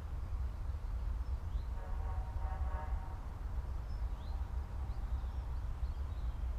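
Quiet farmland ambience: a steady low rumble, with a faint, distant, drawn-out pitched sound lasting about a second from two seconds in, and a few faint bird chirps.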